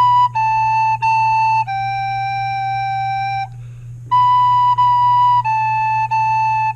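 Soprano recorder playing a simple tune in separate tongued notes: B, B, A, A, then a long held G, a short pause, then B, B, A, A again. A steady low hum sits underneath.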